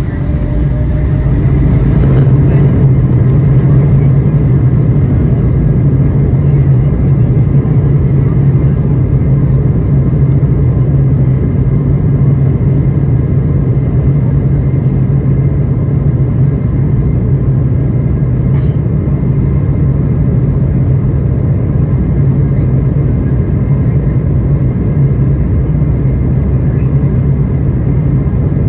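An Embraer E175's turbofan engines spooling up to takeoff thrust over the first two or three seconds, then a loud, steady drone through the takeoff roll, heard inside the cabin over the wing.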